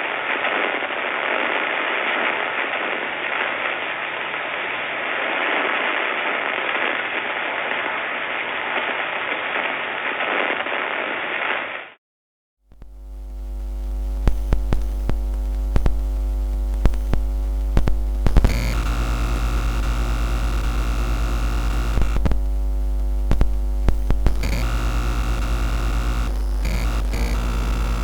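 Two electrical interference sound effects in turn. First a dense, steady static hiss, which stops about twelve seconds in; then, after a brief silence, a loud electrical hum with several steady tones over it, broken by irregular clicks and crackles.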